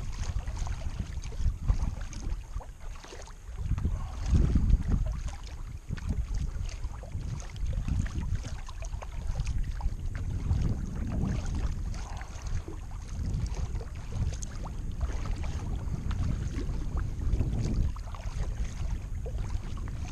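Kayak being paddled, with small splashes and drips from the paddle, under a gusty low rumble of wind on the microphone.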